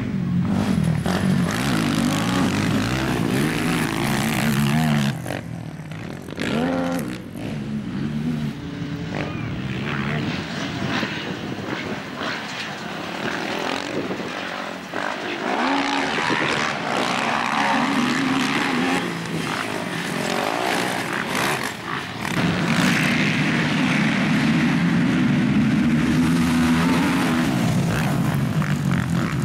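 Several racing quad bikes revving hard as they race past, their engine notes rising and falling with the throttle. Loud at first, quieter through the middle while they are farther off, and loud again from about two-thirds through as a pack passes close.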